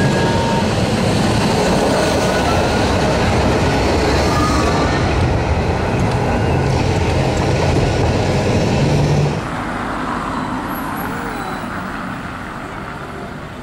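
Heritage tram running at speed, heard from on board: a steady rumble and rattle of wheels on the rails with motor noise. About nine seconds in it cuts to quieter street sound as an open Boat tram comes along the promenade.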